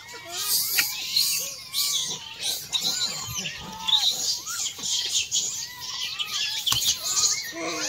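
A troop of rhesus macaques calling: many short, overlapping squeaks and chirps that rise and fall in pitch.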